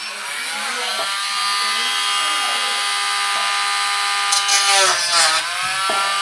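Dremel Stylus cordless rotary tool with a sanding wheel, its small motor spinning up to a steady high-pitched whine. Near the end the pitch dips briefly as the wheel bears on the work, then recovers.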